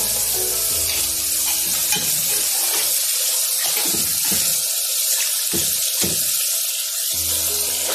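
Masala of fried onion, ginger-garlic paste and red chilli, loosened with a little water, sizzling steadily in hot oil in an aluminium pot, with a spoon stirring it at the start.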